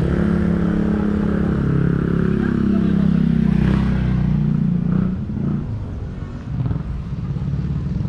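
A motor vehicle's engine running close by, its pitch sagging slightly over about five seconds before it drops away.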